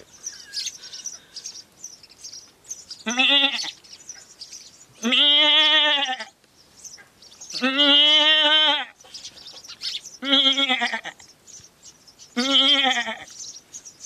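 A man imitating a goat with his voice: five bleats about two seconds apart, each with a wavering, quavering pitch, the longest lasting over a second.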